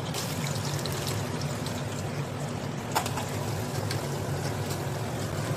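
Steady pouring and trickling of water as boiled noodle water drains through a steel colander, with one light click about three seconds in.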